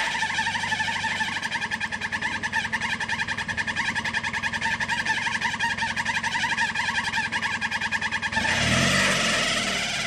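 Toyota Land Cruiser's engine running slowly under load as the truck crawls over rocks, under a steady high, fast-pulsing buzz. About eight seconds in the engine revs, rising and falling in pitch, and the sound grows louder.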